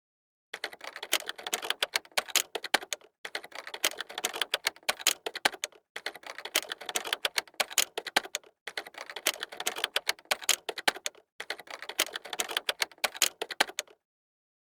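Rapid typing: dense clattering keystrokes in five runs of about two and a half seconds each, with short breaks between them.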